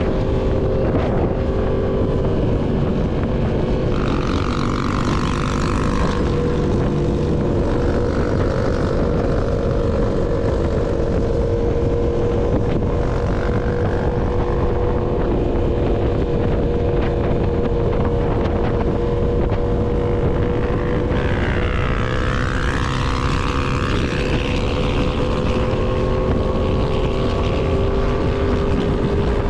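Yamaha MT-10's crossplane inline-four running through an SC Project full-system exhaust at a steady cruising engine speed, its pitch drifting only slightly. Heavy wind buffets the microphone.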